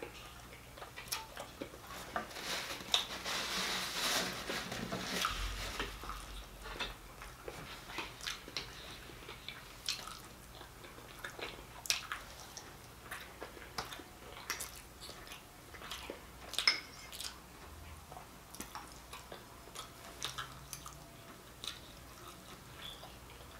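A person eating close to the microphone: a few seconds of crunchy chewing beginning about two seconds in, then quieter chewing and mouth sounds with scattered short clicks.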